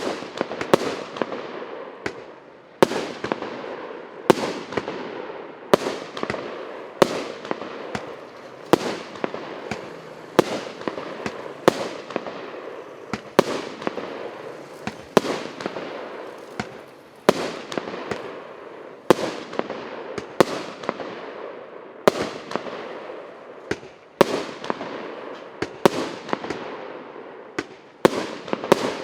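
A 99-shot, 1.25-inch firework cake firing in a steady volley: sharp bangs roughly once a second, with smaller ones in between, each trailing off in a hiss.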